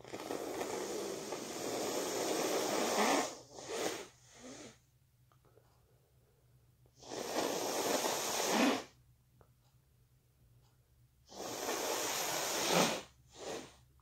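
A person blowing their nose hard three times, each long blow followed by one or two short, sharp ones.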